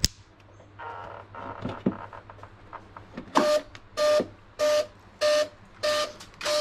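A sharp snap as the battery plug is connected, then some handling. From about three seconds in come six short, evenly spaced beeps of one mid pitch. These are the startup beeps of the boat's brushless speed controller as it powers up its EDF motor.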